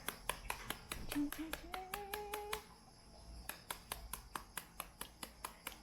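Knife chopping banana heart on a cutting board: rapid, even strokes about five a second, with a short pause a little before the middle.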